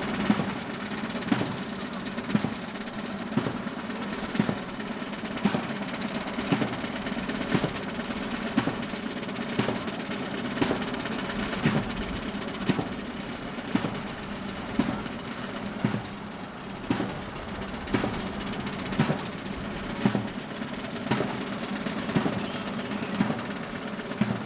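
Marching band drums tapping out a steady beat for the band, one sharp stroke about once a second.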